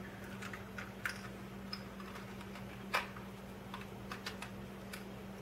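Faint, irregular clicks and taps of small plastic rotary-tool accessories and their containers being handled, the sharpest about a second in and near three seconds. A steady low hum runs underneath.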